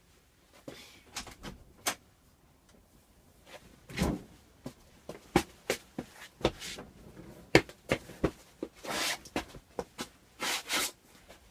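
Scattered knocks and clunks of things being handled on a workbench, with a few longer swishing, rubbing noises in the last few seconds, as a small fire from a rag soaked in carburetor cleaner is put out.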